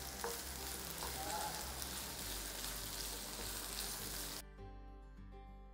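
Chopped capsicum, onion and garlic sizzling in hot oil in a kadai. About four and a half seconds in the sizzle cuts off suddenly, leaving soft background music.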